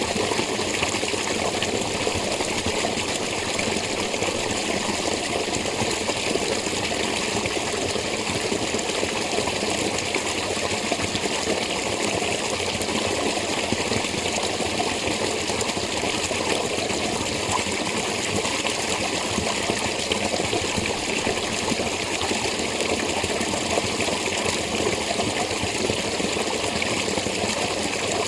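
Water of a spring running steadily, a continuous splashing rush with no breaks.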